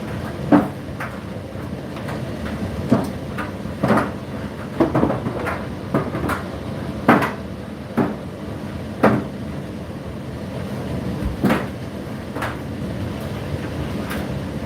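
Indesit IDC8T3 condenser tumble dryer running mid-cycle: a steady motor and drum drone with the tumbling load knocking irregularly against the drum, sharp clunks about once a second.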